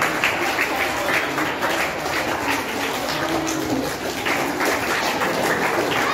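A crowd of children clapping steadily, with some chatter, in a large echoing hall.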